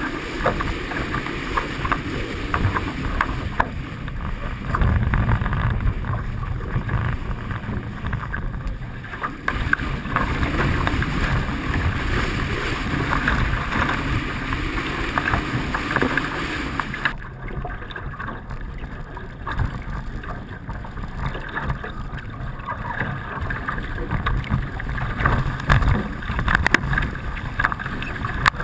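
Wind buffeting the microphone and water rushing and splashing past a Hobie 16 catamaran's hulls while sailing fast, a steady rough rush with frequent sharp slaps. The high hiss thins out about two-thirds of the way through.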